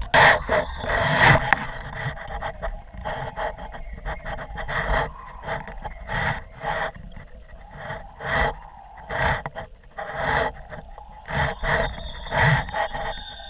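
Wind buffeting a kite-borne camera's microphone in irregular gusts, a rough rush every second or so over a faint steady hum.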